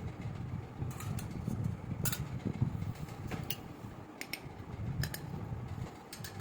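Light clicks and taps of small toy kitchen pieces being handled, coming irregularly over a low steady rumble.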